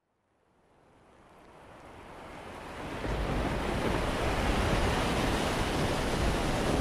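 Stormy sea: waves surging and wind rushing, fading in from silence over the first three seconds, then holding steady.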